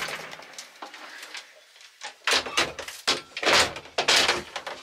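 Wooden inner doors of a small old lift pushed shut by hand: a run of knocks and rattles starting about two seconds in.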